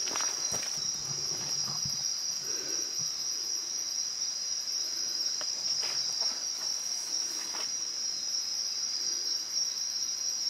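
Night insects of the rainforest, crickets or similar, calling in a steady high-pitched chorus, with a few faint knocks or steps here and there.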